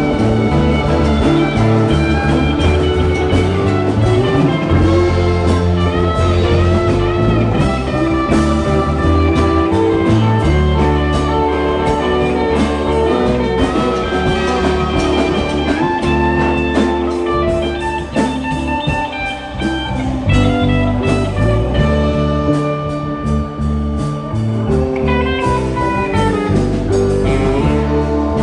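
Live rock band playing an instrumental passage: electric guitar lead with bending notes over electric bass, keyboards and drum kit.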